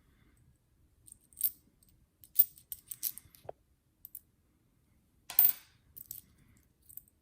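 Silver Barber dimes clinking against one another as they are handled and set down: a run of light, sharp clinks, the loudest cluster about five seconds in.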